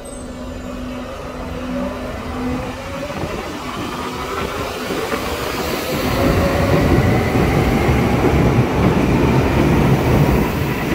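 Berlin U-Bahn train pulling out of an underground station: its motor whine rises steadily in pitch as it accelerates, and the wheels' rumble grows louder as the cars pass close by.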